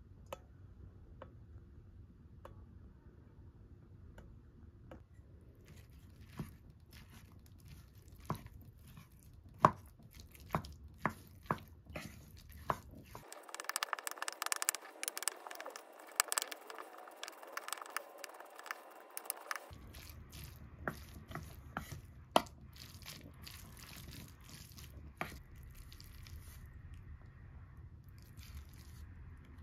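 Wooden spoon mixing rice, radish salad and fried egg in a pot: wet squishing and scraping, with sharp taps of the spoon against the pot. The squishing is densest about halfway through, and the taps come on and off throughout.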